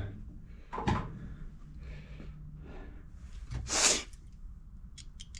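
A short burst of aerosol carburetor cleaner sprayed through a straw onto a small carburetor part, about four seconds in, with a light knock of parts being handled about a second in and a few small clicks near the end.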